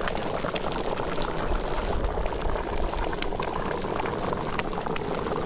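A thick coconut-milk Ital stew bubbling steadily in a pot over a wood fire, cooking down, with many small pops.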